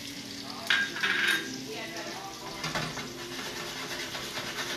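Breaded chicken cutlets sizzling in butter and oil in a stainless steel pan, with a utensil scraping and moving them against the pan; a louder stretch of scraping about a second in.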